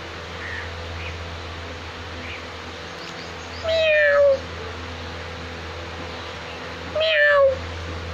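Kitten meowing twice, each call falling in pitch and lasting well under a second, over a steady low hum.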